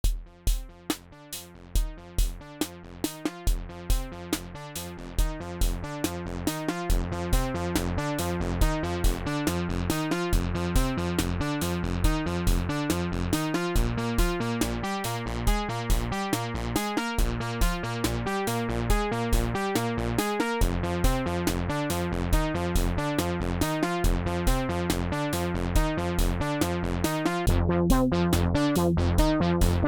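MFB-301 Pro drum machine playing its factory preset beat: a steady electronic kick about twice a second under a repeating synth bass line, fading up over the first several seconds.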